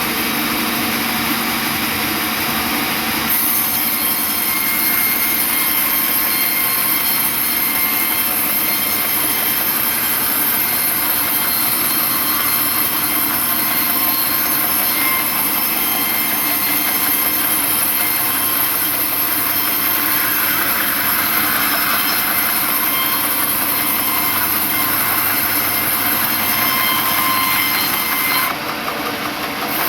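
Sawmill wheel saw (band saw) running through a large log, a loud steady high-pitched hiss and squeal of the blade in the wood. The high hiss grows stronger about three seconds in and drops away briefly near the end.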